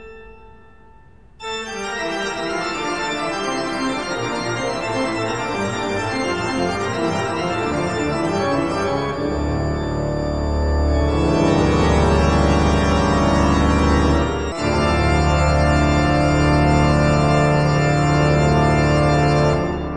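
Soundtrack music of sustained organ-like keyboard chords, entering about a second and a half in, with a deep bass line joining about halfway through and a brief break shortly after; it fades out at the very end.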